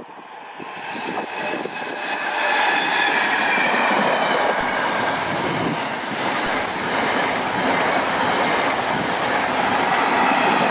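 A locomotive-hauled train of passenger coaches passing close by at speed. It grows louder over the first two seconds as the locomotive arrives, then stays loud as the coaches roll past, with wheel and rail noise and a high ringing on top.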